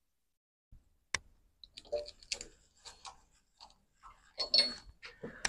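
Scattered sharp clicks, taps and light rubbing as a long PVC window profile is handled and positioned on the table of a double-head profile cutting saw, with a brief squeak near the end.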